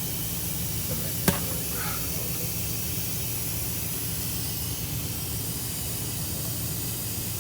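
Steady hiss with a low hum underneath, and one sharp click about a second in.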